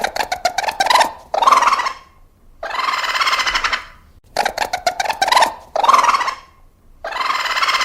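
Raccoon calling in a repeating pattern: a long raspy trill, a quick run of chittering clicks, then a shorter trill. The sequence comes round about twice.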